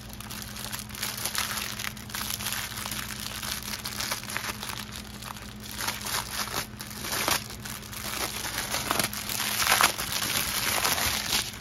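Plastic packaging of a diamond painting kit crinkling as it is handled: the clear wrap around a rolled canvas and a plastic bag of drills. The crackling runs on without a break, loudest about ten seconds in.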